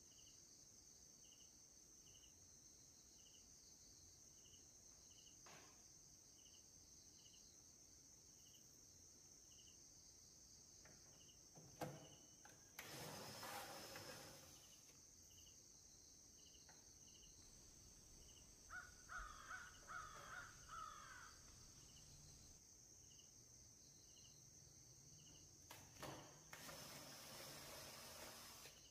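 Power drill with a screwdriver bit briefly running as it backs out the screws of a CRT TV's picture-tube mounting bracket, in two short bursts, one about halfway through and one near the end. Between them a bird calls a few times, over faint, steady cricket chirping.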